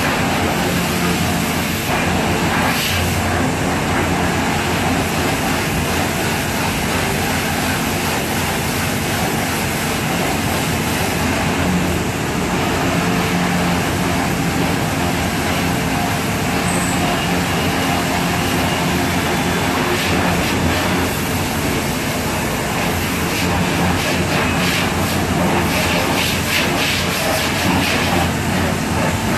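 Pressure washer running steadily as water is sprayed over a motorcycle in a wash bay: an unbroken hiss of spray over a low machine hum.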